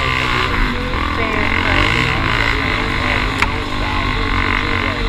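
Dirt bike engine running under a rider's throttle, its revs rising and falling over a steady low rumble. A single sharp knock comes about three and a half seconds in.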